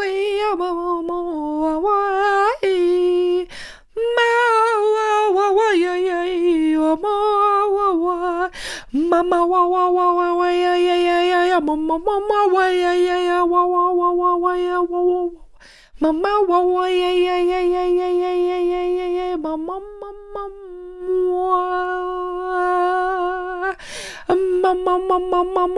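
A woman's unaccompanied voice singing long, held, wordless notes, with short breaks for breath every few seconds.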